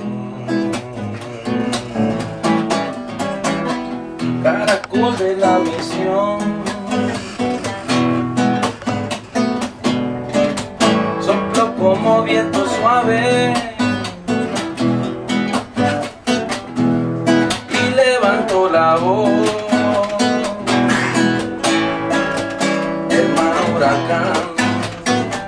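Acoustic guitar music: an acoustic guitar strummed briskly, with a melody line wavering over it.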